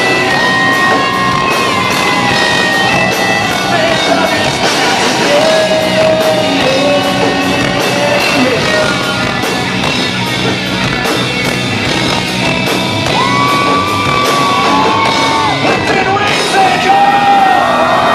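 Hard rock band playing live at high volume: drums with regular cymbal hits, electric guitars and a wavering melodic lead line, with shouts over the top.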